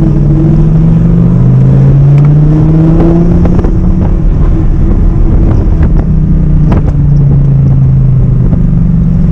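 Audi R8's V10 engine under acceleration, its pitch climbing over the first three seconds, then dropping back and running on at a steadier note.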